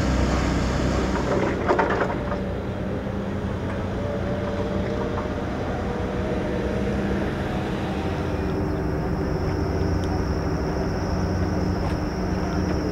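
Steady low machinery drone of a destroyer and its harbour tugs getting under way, with a short clatter about two seconds in and a thin high whine joining past the middle.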